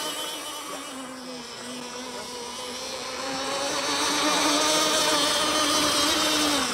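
OS 21XM 3.5cc glow (nitro) outboard engine of a radio-controlled tunnel hull boat running at speed with a steady pitched buzz. It fades for a second or two, then grows louder again from about three seconds in.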